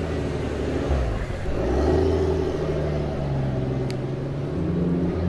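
Sports car engine running at low revs as the car pulls slowly away, with a slight swell in revs about two seconds in.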